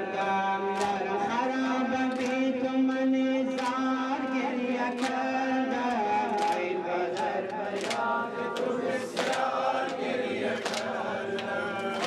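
A group of voices chanting a Muharram mourning lament (noha) together on long held notes, with a sharp beat from the group about every second and a half.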